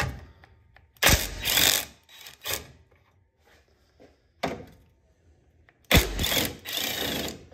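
A power tool running in short bursts while loosening bolts in an engine bay. There is a burst of about a second, then two brief ones, one more a couple of seconds later, and a longer burst of over a second near the end.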